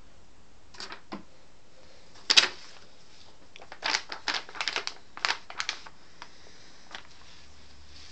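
A sheet of paper crackling and flapping as it is waved about and batted at by a kitten. There is one loud crackle just after two seconds in, then a quick run of crackles over the next two seconds.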